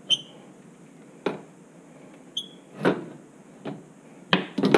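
Hands twisting a plastic wire nut onto the oven igniter's wire leads: two short high squeaks, then a series of light knocks and clicks, bunched near the end.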